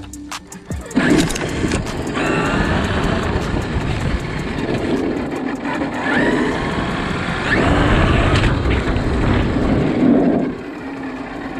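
Electric brushless RC trucks driving hard. Their motors whine up and down in pitch over tyre and chassis rattle, with a few sharp clicks near the start. The driving noise drops off about ten and a half seconds in.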